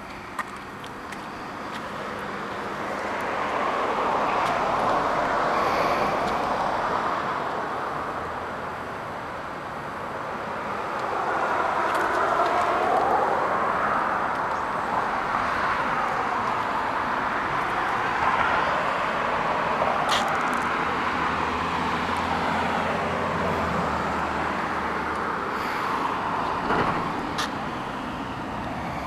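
Road traffic going by: tyre and engine noise from passing vehicles swells and fades over several seconds at a time, with a couple of faint clicks.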